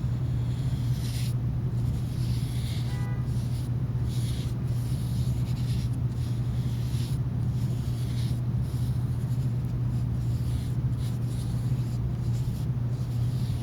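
Paintbrush strokes on paper, faint irregular swishes, over a steady low hum.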